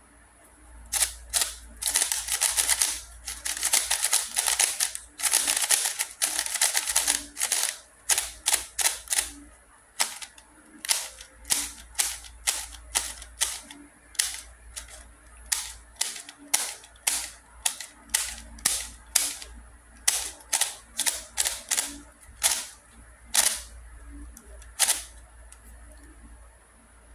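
VanDyke 3x3 speed cube's plastic layers being turned by hand, clacking with each turn. A fast run of turns in the first several seconds, then single clacks about one or two a second.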